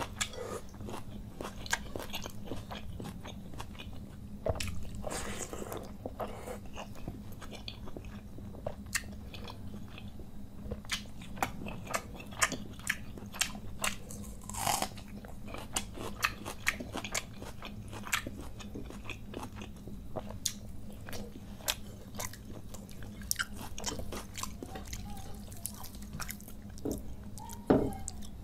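Close-miked chewing and biting of mouthfuls of panta bhat (watery fermented rice) eaten by hand with fried hilsa fish and raw green chilli: a steady run of wet mouth clicks and crunches. Near the end a hand squishes loudly through the soaked rice, over a faint steady low hum.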